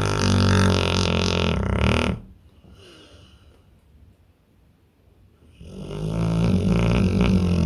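Pit bull snoring in deep sleep: a long, loud snore ends about two seconds in. After a quiet pause, the next long snore starts near six seconds.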